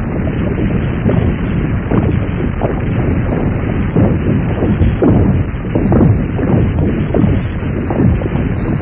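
Experimental noise recording made with guitar, voice, metals, tapes and electronics: a dense, loud, bass-heavy rumble of distorted noise broken by frequent irregular surges and hits, with no steady beat or melody.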